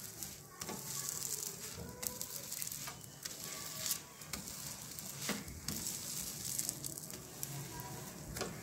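Spinach paratha sizzling on a hot non-stick tawa while a steel spatula presses it all over to make it puff, with a number of short scrapes and taps of the spatula on the pan.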